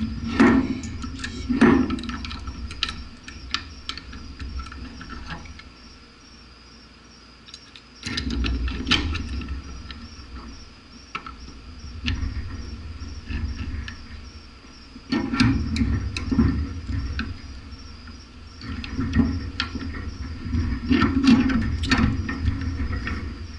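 Clicks, knocks and scraping as an upper-receiver vise block holding a .300 Blackout round is handled and clamped up in a steel bench vise, in several bouts of work. A steady pulsing chirp of crickets runs underneath.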